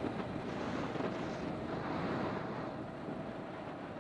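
Yamaha XT 660 R's single-cylinder engine running steadily at low speed, with wind rushing over the microphone.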